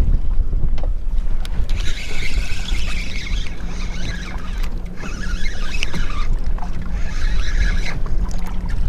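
Steady low rumble of a boat on the water, with wind on the microphone, and three separate spells of a higher rasping hiss, each about a second long.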